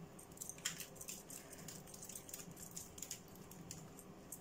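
Faint, scattered ticking and rattling of gritty mineral potting mix falling into a plastic tray as a thin metal tool works it loose from a cactus's roots.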